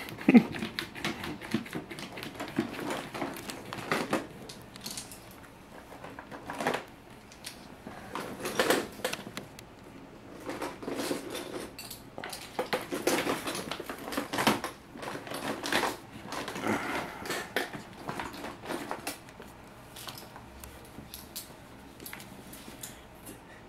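A cat digging with its claws inside a plastic wastebasket: irregular spells of quick scratching and scrabbling on the plastic, with small knocks of the bin, dying down over the last few seconds.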